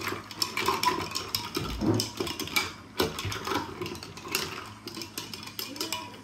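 Long spoons stirring ice cubes in two tall glasses of milk: a rapid, continuous clinking and rattling of spoon against ice and glass.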